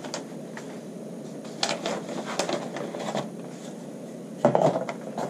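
Handling sounds: a large sheet of pattern paper rustling and a few soft taps on the table, with a louder rustle near the end.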